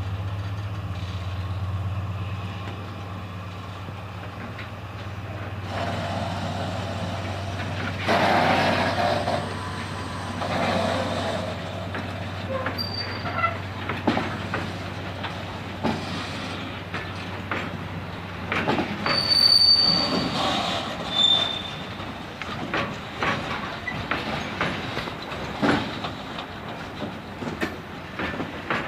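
Diesel locomotive shunting: a steady low engine hum, then wagons rolling slowly with repeated clacks and knocks of wheels over rail joints and points, and a few brief high-pitched wheel squeals near the middle.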